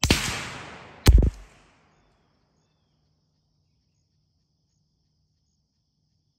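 A sharp .22 rifle shot with a long fading echo, then about a second later a second, shorter sharp crack with a heavy low thump.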